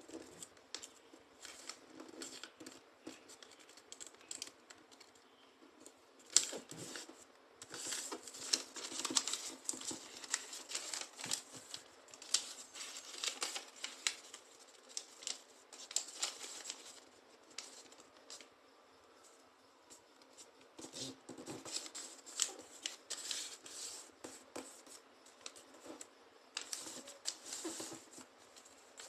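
Sheets of paper rustling and crinkling as they are folded and creased by hand into a paper plane: a run of short, sharp scrapes and crackles, with a brief lull a little after halfway.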